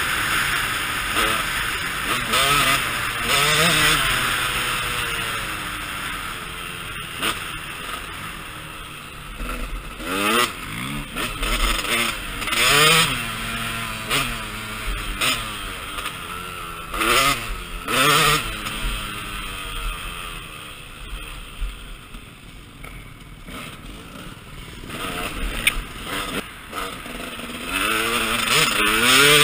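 KTM 200 EXC two-stroke dirt bike engine revving up and down over and over as the rider works the throttle and gears along a trail. A rushing hiss runs underneath, loudest at the start and near the end and quieter in the middle.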